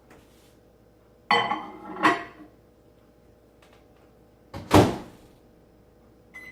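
Microwave oven being shut and set: two clattering knocks about a second in, a louder sharp knock a little later, then a short single keypad beep near the end as the cooking time is entered.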